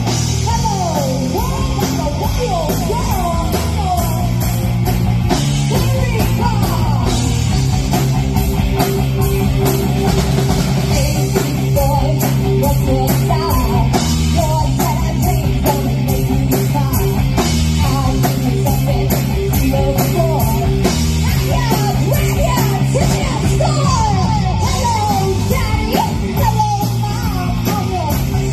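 Live rock band playing a punk-rock song: a female lead singer over electric guitars, bass guitar and drum kit, loud and steady throughout.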